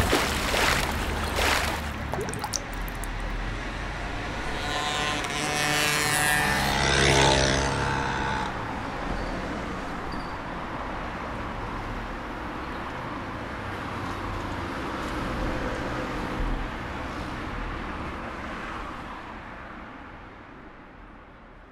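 City street ambience of passing road traffic, a steady hiss and rumble, with one louder vehicle pass carrying a pitched whine about five to eight seconds in; it fades out near the end.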